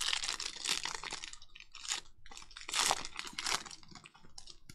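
Plastic cello wrapper of a Panini Prizm football card pack crinkling and tearing as it is opened by hand, in a run of crackling bursts, loudest about a second in and again near three seconds in.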